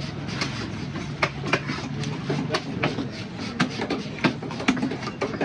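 Knife chopping through fish: sharp, irregular knocks about three a second, over steady background noise.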